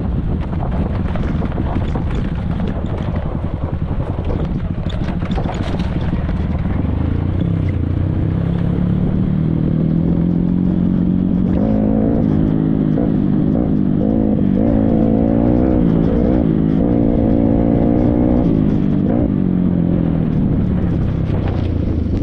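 Small motorcycle engine running under load. Its pitch climbs about eight seconds in, holds higher with wavering revs, and eases off again near the end.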